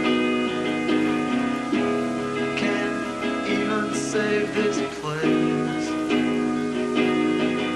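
Live band music led by guitar: sustained chords with plucked and strummed notes, recorded on worn VHS tape.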